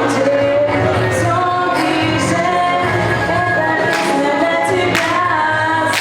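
A song with a female singing voice over musical accompaniment.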